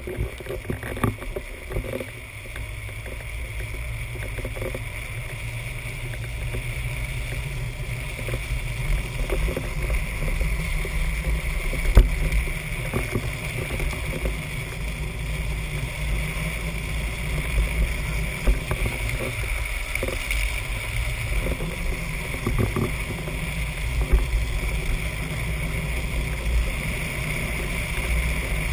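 Drift trike rolling and sliding fast down an asphalt road: the hard rear wheels scraping and rumbling on the tarmac, with wind buffeting the microphone and an occasional sharp knock from a bump, the strongest about twelve seconds in.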